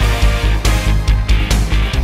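Background music with a fast, heavy bass beat.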